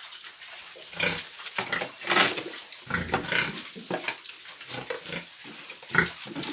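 Pigs grunting in short irregular calls, with a sharp knock about six seconds in.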